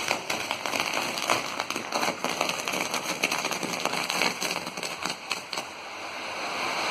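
Fireworks crackling, with many small pops in quick, irregular succession that thin out near the end.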